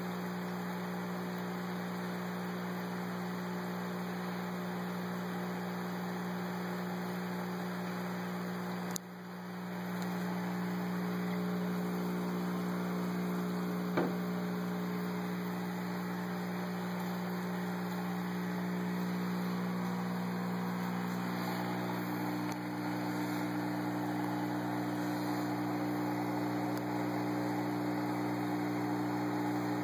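Steady electrical hum over a soft hiss, typical of a home aquarium's air pump and filtration running, with a single click about fourteen seconds in.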